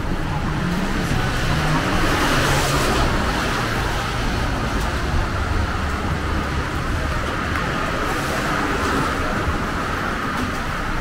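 Road traffic on a rain-wet city street: a steady rush of tyres and engines, swelling as a vehicle passes about two to three seconds in.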